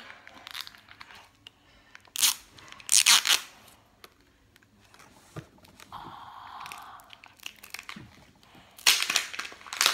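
The paper and plastic wrapping of an LOL Surprise ball being torn and crinkled by hand, in several short bursts of tearing and rustling, the longest near the end.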